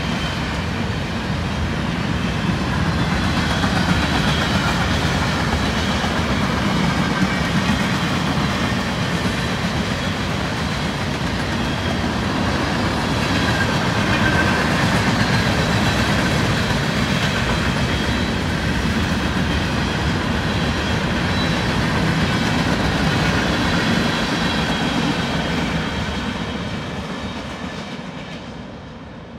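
A mixed freight train's cars (tank cars, hoppers and autoracks) rolling past on steel rails, a steady loud noise of wheels on the track. The sound fades away over the last few seconds as the end of the train moves off.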